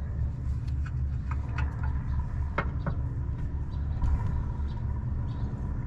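Light clicks and scrapes as a drain hose fitting is unscrewed by hand from an EZ Drain oil drain valve. Under them runs a steady low rumble with a faint hum.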